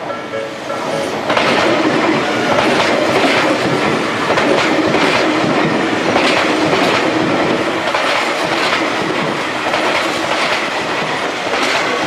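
Tobu 200 series six-car electric limited express train passing over a level crossing: the crossing's warning bell rings at the start, then from about a second in the train's running noise takes over, with repeated clacks of the wheels over the rail joints.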